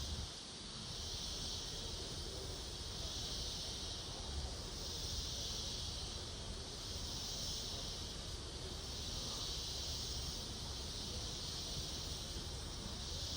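Chorus of night insects in tropical forest: a steady high-pitched hiss that swells and fades in slow waves every couple of seconds, over a low rumble.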